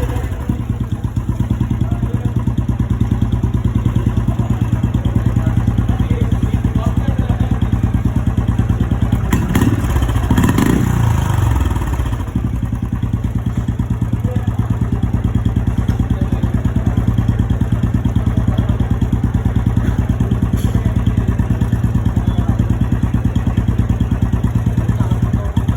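Royal Enfield Classic 350's single-cylinder engine idling through its exhaust with a steady, even thump. About ten seconds in it revs up briefly once, then settles back to idle.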